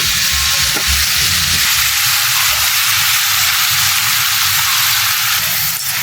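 Valley stream water rushing over rocks: a loud, steady hiss with a low rumble underneath.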